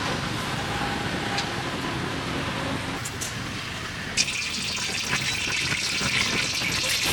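Hot oil sizzling in a deep-frying pan. About four seconds in there is a sharp knock, and the sizzle surges into a loud, dense crackling hiss that keeps going.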